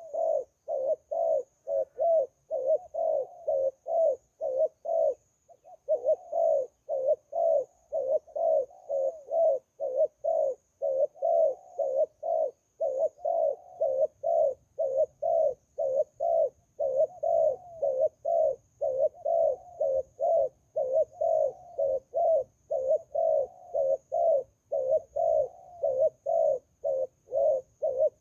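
Zebra dove cooing: a long unbroken run of short, soft coos, about two to three a second, with one brief pause about five seconds in.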